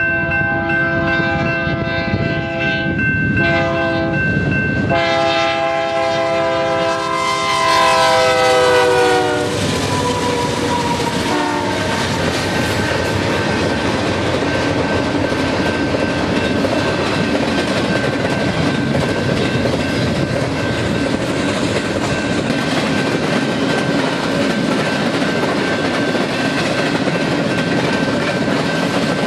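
Freight locomotive air horn sounding a chord of several tones in a few blasts, briefly broken twice, its pitch dropping as the locomotive passes before it stops about nine seconds in. Then the freight train rolling by, with steady wheel clatter on the rails.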